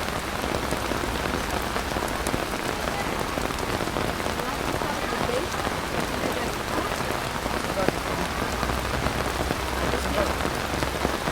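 Heavy rain pouring steadily, with a few sharp drops standing out.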